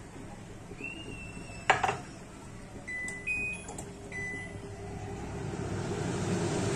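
Steady hiss from a gas stovetop, with a kadai of oil heating on one burner and pasta boiling in a pot on another, growing louder over the last few seconds. A single sharp click comes about 1.7 s in, and a few faint short high beeps sound near the middle.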